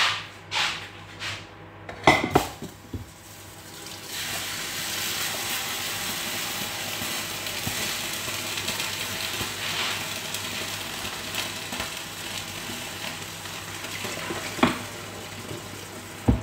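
Kitchenware clattering a few times, then a steady hiss lasting about ten seconds that fades, with a couple more knocks near the end.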